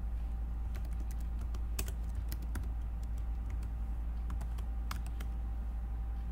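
Typing on a computer keyboard: irregular key clicks, bunched in quick runs, over a steady low hum.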